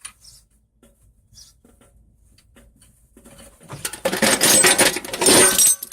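A few faint clicks, then loose metal tools clattering and jingling loudly for about two seconds, starting about four seconds in.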